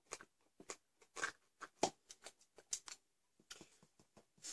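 A spoon stirring thick potato stew inside a foil meal pouch: irregular soft scrapes, clicks and crinkles of the pouch, a few every second.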